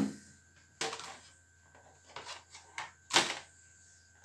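Several short clicks and knocks of handling: one about a second in, a few light ticks, and a louder clatter about three seconds in. They come as the TV's power wire is found and plugged in.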